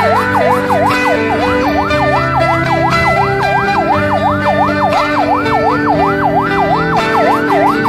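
Electronic yelp siren wailing rapidly up and down, about three sweeps a second, with music underneath.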